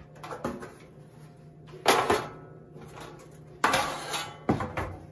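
Aluminium leg frame being fitted onto the steel case of a London Sunshine portable charcoal grill: several metal clanks and rattles, the loudest about two seconds in and again near four seconds, with lighter clicks between.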